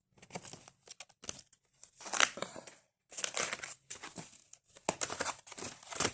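Paper rustling and crinkling in irregular bursts as the flaps and cards of a paper lapbook are handled.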